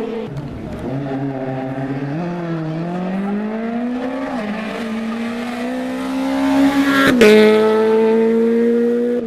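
Rally car engine accelerating hard, its pitch climbing steadily for several seconds and growing louder. About seven seconds in there is a sharp crack, the loudest moment, and then the engine carries on at high revs.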